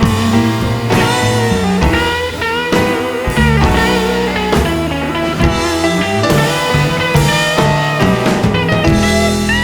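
Rock music with guitar, bass and drums.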